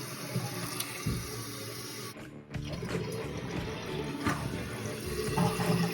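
Water running into a toilet tank as it refills through a new fill valve, with a few light clicks and knocks as the flapper chain is adjusted.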